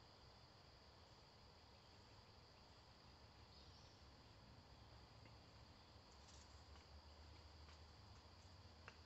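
Near silence with a faint, steady high-pitched insect chorus of crickets. A low rumble grows in the second half, with a few faint ticks.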